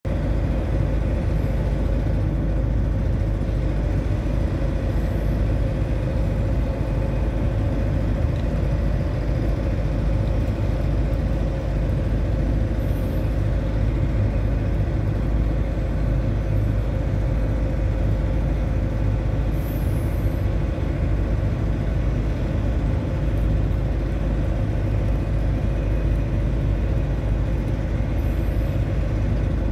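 Steady low rumble of ship's engines and machinery, with a constant hum over it and no change in level.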